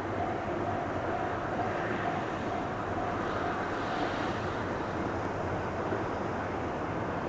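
Ohmi Railway electric train running, a steady noise throughout. A pulsing tone sounds during the first half and stops about four seconds in.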